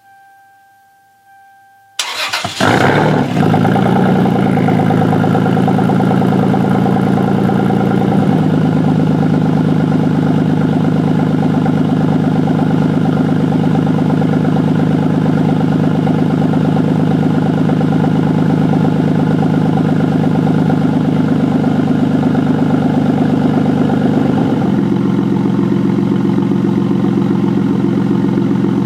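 Toyota Supra's 2JZ-GTE twin-turbo inline-six starting through a Tomei Expreme Ti titanium exhaust with the catalytic converters still fitted. It catches about two seconds in after a steady electronic tone, runs at a fast cold idle, settles to a lower idle about eight seconds in, and steps down slightly once more near the end.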